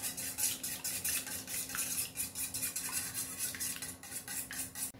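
Wire balloon whisk beating raw eggs in a stainless steel bowl, the wires clinking and scraping against the metal in a quick, even rhythm that stops just before the end.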